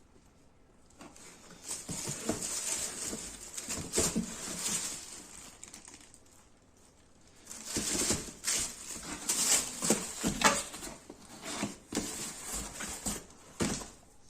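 Shoe packaging rustling and crinkling as a shoe is unwrapped and handled, in two spells of irregular crackling with a short quiet pause between.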